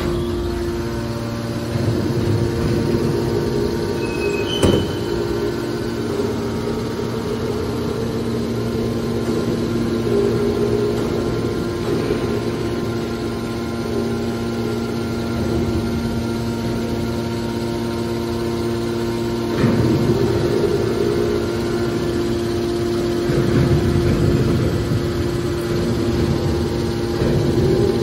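Hydraulic power unit of a metal baler running: electric motor and piston pump giving a steady hum. There is a sharp knock about five seconds in, and louder rushing surges near the middle and toward the end.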